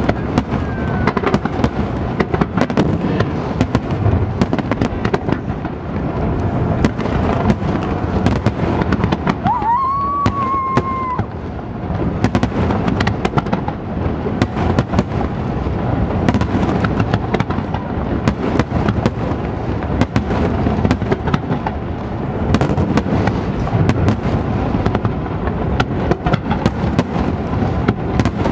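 Fireworks display: a dense, continuous barrage of bursting shells, bangs and crackling pops. About ten seconds in, a short whistle rises in pitch and holds for about a second.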